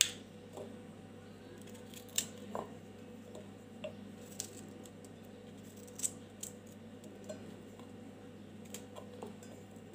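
Kitchen knife cutting a head of cauliflower into small florets by hand: faint, irregularly spaced snaps and clicks as the blade cuts through the stems.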